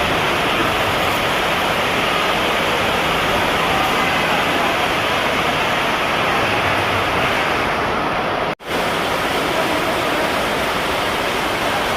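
Loud, steady rushing noise with no distinct events, cut by a brief dropout about eight and a half seconds in.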